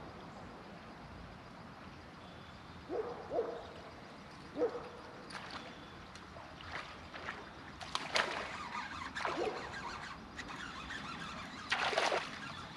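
An owl hooting on and off, a few short low hoots. Near the end comes a loud splash as a bass strikes a buzzbait at the surface, with a shorter splashy noise a few seconds before it.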